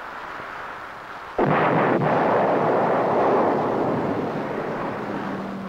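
A rock-blasting explosion goes off about a second and a half in: a sudden bang, then a long noisy tail that slowly fades over about four seconds. Before it there is only the steady hiss of an old film soundtrack.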